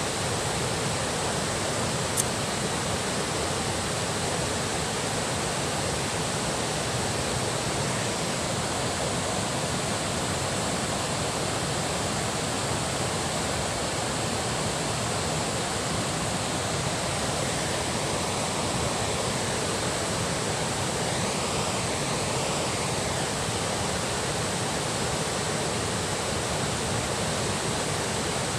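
Water rushing steadily from a dam's outflow, an even, unbroken noise, with a brief click about two seconds in.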